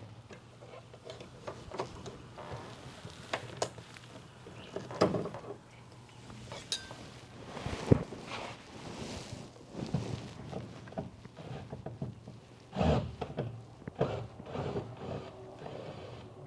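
Scattered, irregular knocks and clatter of things being handled, loudest about eight seconds in and again near thirteen seconds.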